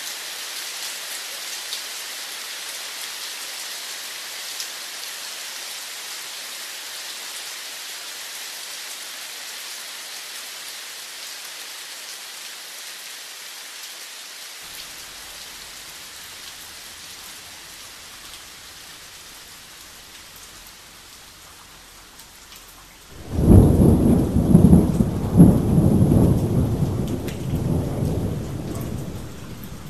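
Steady rain hissing and slowly easing off. About three-quarters of the way through, a loud clap of thunder breaks in and rumbles for several seconds before dying away.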